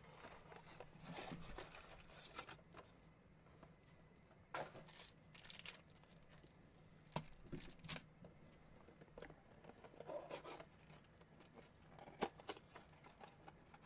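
Faint tearing of a cardboard trading-card box and crinkling of foil card packs as they are pulled out, in short scattered bursts.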